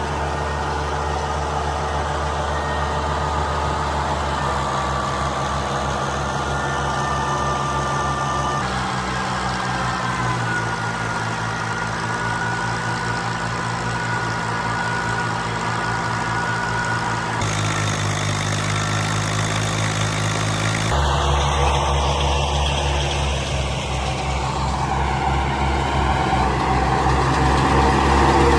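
Diesel engine of a combine harvester running steadily under working load, its pitch and tone changing abruptly about a third of the way in and twice more later on.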